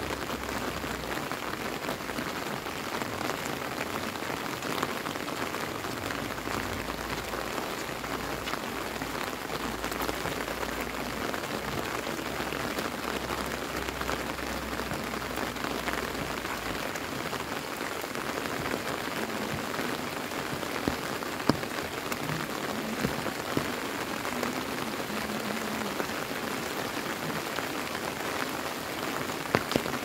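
Steady rain falling on a wet paved road and roadside grass, an even hiss, with a few sharp taps about two-thirds of the way through.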